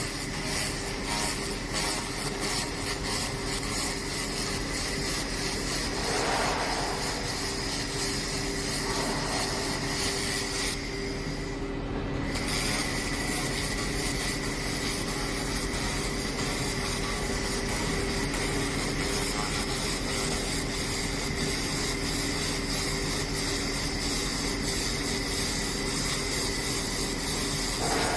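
Fiber laser machine working metal: a steady hissing buzz over a constant hum with several steady tones. The hiss cuts out about eleven seconds in and resumes about a second later.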